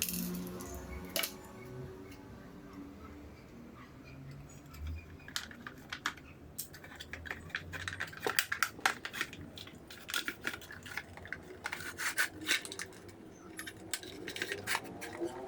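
Irregular clicks and light clatter of small hard parts being handled and fitted together, sparse at first and coming thick and fast from about a third of the way in.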